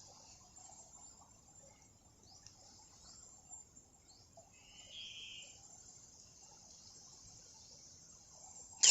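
Faint night chorus of insects, with short calls now and then. Near the end comes a single loud, sharp crack lasting a fraction of a second.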